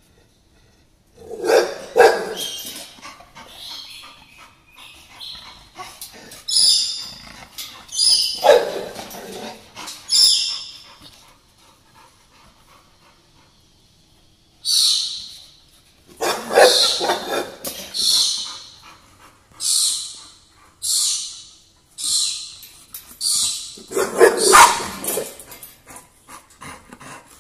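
Dogs barking in short bouts about four times, with a bird's loud, high, chirping calls repeating about once a second through the second half.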